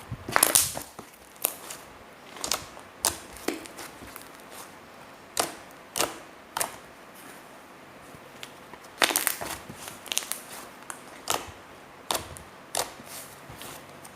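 Soft clay slime being squeezed and pressed by hand, giving irregular sharp pops and crackles, some in quick clusters.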